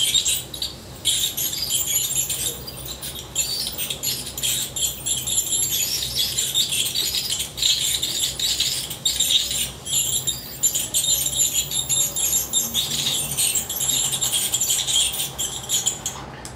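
Powered dental handpiece working on a dog's teeth: a high hissing, scratchy sound that keeps stopping and starting with brief breaks, over a faint steady low hum.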